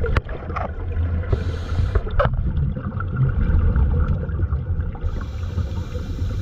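Steady low rumble with a haze of noise over it, and a few sharp clicks near the start and about two seconds in.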